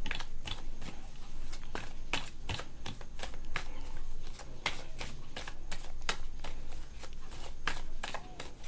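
A deck of tarot cards being shuffled by hand, the cards clicking and sliding against each other in a quick, irregular run of light snaps.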